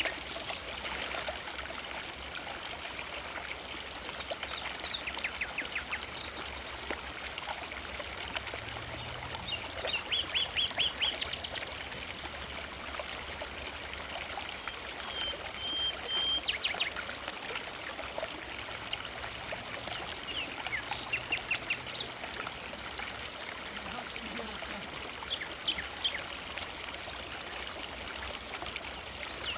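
Forest river flowing steadily, a continuous rush of running water. About every four to five seconds a bird calls over it in short, rapid chattering bursts, and once a brief high whistle sounds near the middle.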